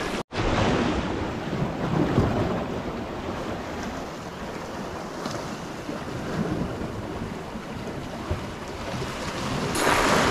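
Sea waves washing against shoreline rocks, with wind buffeting the microphone; the surge grows louder near the end.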